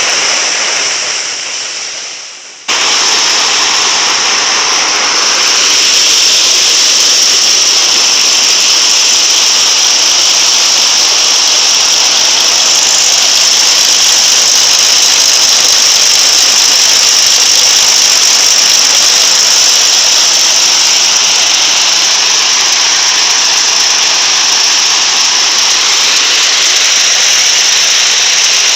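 A rice threshing machine running steadily, a loud, high, hissing machine noise. It dies away over the first two seconds, then cuts back in abruptly and runs on unchanged.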